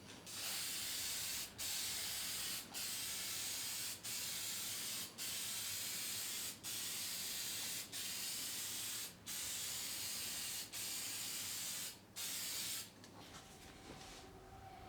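Lacquer being sprayed onto wood in about ten hissing bursts of a second or so each, with brief pauses between them, stopping near the end.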